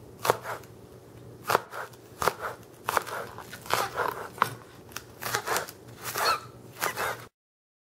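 Chef's knife slicing scallions into thin rounds on a plastic cutting board: a run of short knife strokes against the board, irregularly spaced at about two a second. The sound cuts off suddenly near the end.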